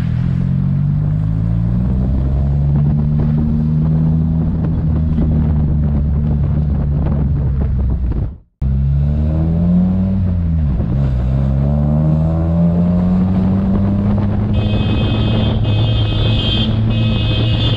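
Car engine and road noise while driving, the engine pitch sliding down and rising again as the car slows and picks up speed. The sound cuts out for a moment about eight seconds in, and in the last few seconds a set of steady high-pitched tones joins in.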